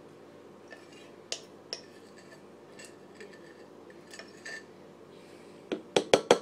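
Kitchen utensils clinking lightly against dishes a few times. Near the end comes a fast, even run of sharper knocks, about seven a second, the loudest sound here.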